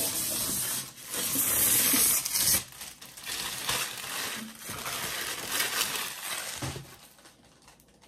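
Packaging being torn off and crumpled by hand. It comes as two loud bursts of rustling and tearing in the first two and a half seconds, then quieter rustling that dies away near the end.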